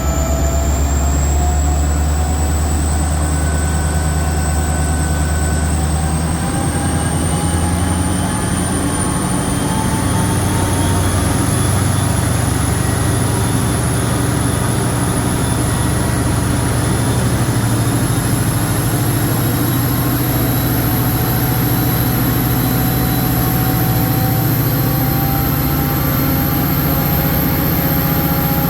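Diesel-electric locomotive C501's EMD 16-cylinder two-stroke engine running loud and being run up, its drone shifting lower down while a high whine and other tones climb slowly in pitch throughout.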